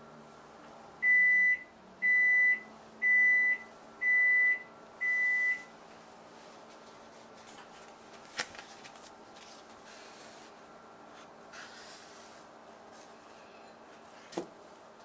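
An electronic kitchen appliance beeper sounds five times, one steady high beep a second, like a microwave or oven signalling that it is done. Later there are two light taps from handling on the work surface.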